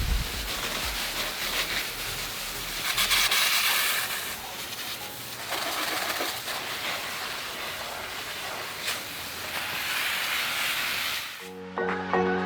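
Hissing spray, steady with several louder surges; music with a steady pitch pattern comes in near the end.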